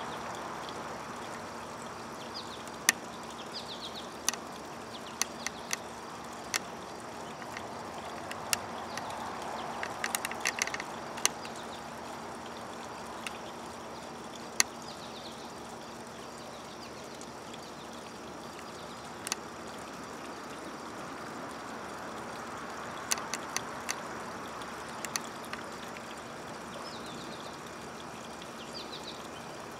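Small birds give a few short, high chirps in brief runs, near the start and again near the end, over a steady outdoor background hiss. Scattered sharp clicks sound throughout.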